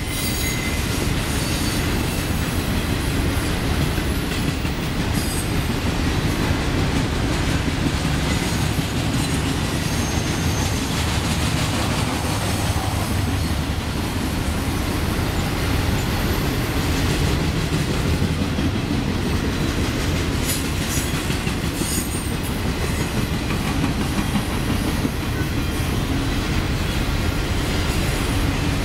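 Intermodal freight cars (trailers on flatcars, double-stacked containers in well cars) rolling past at track speed: a steady rumble and clatter of steel wheels over rail joints, with a few brief high wheel squeals.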